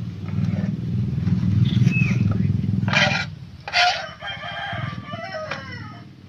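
A rooster crowing once, about four seconds in, a long call that drops in pitch at the end. Before it, a low motor-like rumble runs through the first half.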